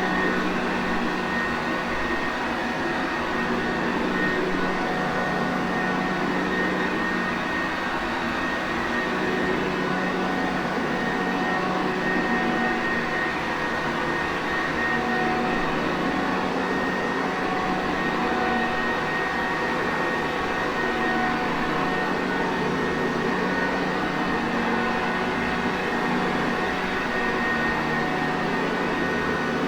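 Sanitaire Perfect upright vacuum cleaner running steadily, its motor giving an even rushing noise with a constant low hum and a thin high whine.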